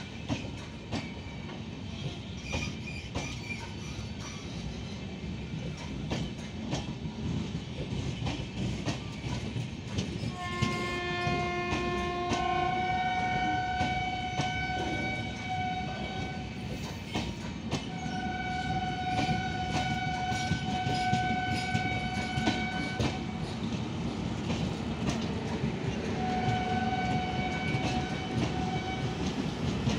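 Express train coaches rolling past, wheels clicking over rail joints. A train horn sounds three long blasts over the running noise: about ten seconds in, around eighteen seconds in, and near the end.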